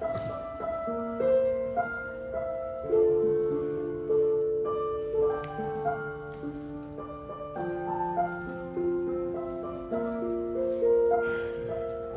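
Slow, gentle piano music: chords and single notes struck about once a second over held lower notes.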